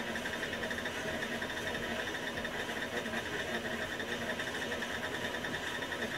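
KitchenAid stand mixer's motor running steadily, beating buttercream frosting in its steel bowl, with a fast even flutter to the hum.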